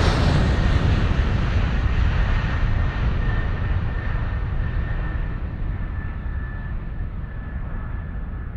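Steady rushing wind noise on the microphone, heavy and low, fading out slowly, with a faint steady high tone joining it about three seconds in.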